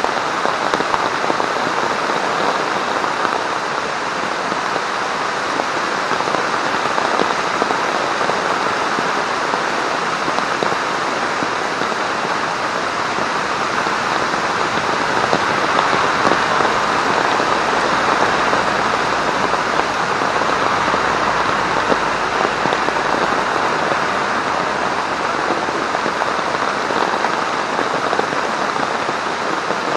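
Heavy rain falling steadily on a military poncho strung as a tarp overhead and on the woods around it, an even, unbroken downpour.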